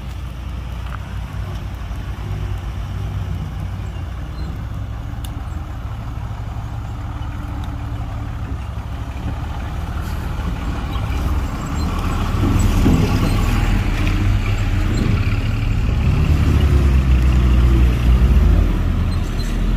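Heavy diesel engine of earthmoving equipment running, a deep steady rumble that grows louder and shifts in pitch about halfway through.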